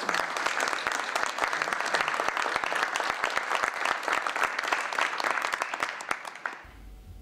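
Audience applauding, many hands clapping together; it starts suddenly and dies away near the end.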